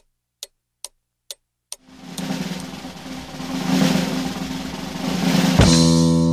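A few sharp ticks, about two a second, then a snare drum roll that swells for nearly four seconds and ends on a single hit: a suspense drum roll leading into an answer reveal.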